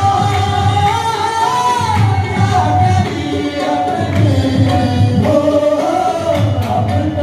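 Qawwali music: a lead male voice holding long, bending notes with a chorus of men, over harmonium, a steady beat and group hand-clapping.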